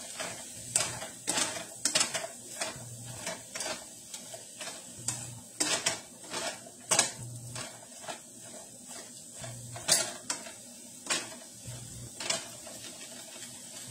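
A cooking utensil stirring chopped vegetables and sausage in a frying pan, with irregular scrapes and knocks against the pan, one or two a second.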